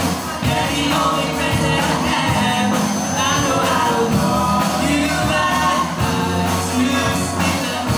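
Live rock band playing: electric guitars, drum kit and keyboard, with a singer's voice over them.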